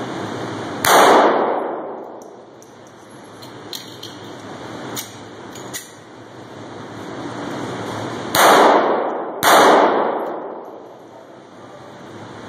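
Three handgun shots fired in an indoor range, each ringing out in a long echo off the walls. One shot comes about a second in, and two more come about a second apart near the end. A few fainter sharp clicks fall between them.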